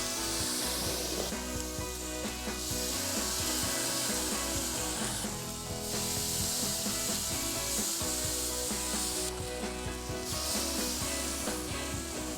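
Marinated striped bass fillets sizzling on a hot charcoal grill grate, a steady hiss that drops out briefly a few times, over background music.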